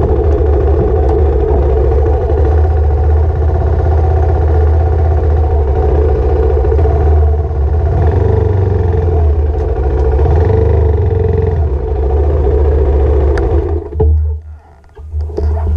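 Motorcycle engine running steadily while riding. Near the end the sound drops away sharply, leaving a few clicks and knocks.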